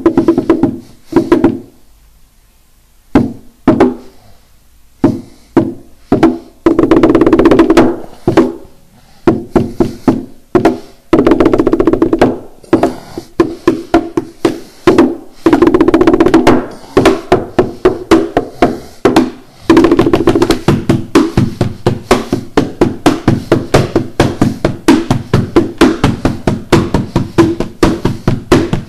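Hand percussion on the body of an acoustic guitar and a cardboard box: rapid knocks and slaps in a fast rhythm. It thins to a few scattered hits for a few seconds near the start, then becomes a dense, continuous pattern.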